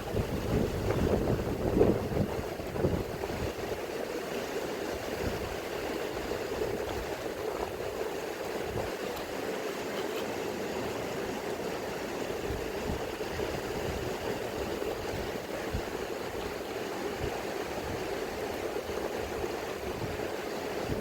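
Mountain river rushing steadily, with wind buffeting the microphone in the first few seconds.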